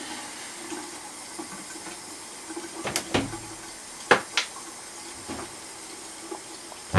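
Tap water running steadily into a bathroom sink, with a few sharp clicks and knocks around the middle as a mirrored cabinet door is opened and items are taken from its shelf.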